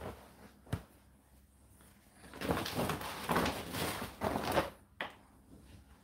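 Dry laundry being pulled from a tumble dryer drum and stuffed into a woven plastic bag: two light knocks, then about two seconds of fabric and plastic rustling, and a click near the end.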